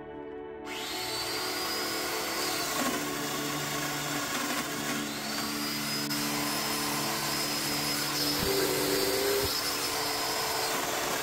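Festool Domino loose-tenon joiner cutting mortises in white oak, its motor whining up to speed twice over the steady rush of the attached dust extractor.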